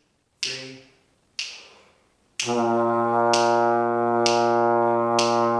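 Finger clicks keep a slow beat, about one a second. About two and a half seconds in, a trombone comes in on a steady, sustained low B flat, played with the slide all the way in, and holds it over the clicks.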